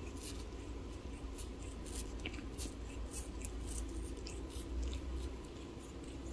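A tabby kitten licking and nibbling a person's fingertip: small wet clicks and rasps of its tongue, coming irregularly.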